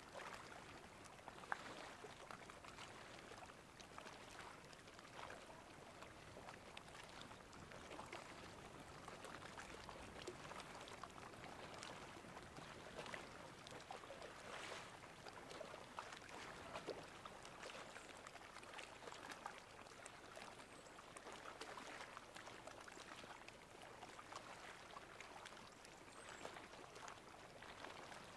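Faint seawater lapping and trickling at high tide: a steady patter of many small, irregular splashes.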